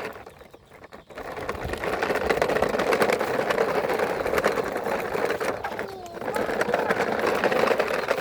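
Electric motor and gearbox of a child's battery-powered toy vehicle running with a steady buzz and rapid clicking, starting about a second in and dipping briefly near six seconds.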